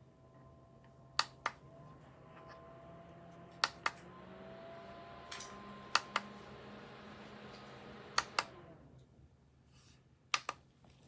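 Paired clicks of a push button about every two and a half seconds, five times, while a small battery desk fan's motor whirs up, growing louder over the first presses and winding down after the fourth.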